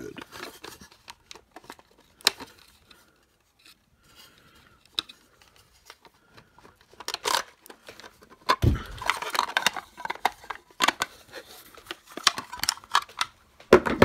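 Plastic clicks and rattles from a cordless-tool battery pack and adapter being handled and fitted together. Scattered sharp clicks at first, a quieter stretch, then a thump a little past halfway and busier clicking and rattling to the end.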